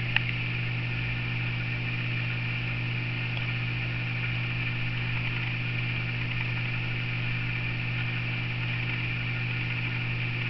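Steady electrical hum with a constant hiss, and one short click about a quarter of a second in.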